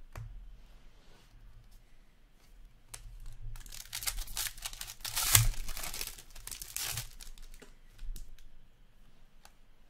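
A hockey card pack's foil wrapper being torn open by hand, crinkling and crackling. It builds from about three seconds in, peaks with a sharp rip a little past the middle, then fades into lighter crinkling.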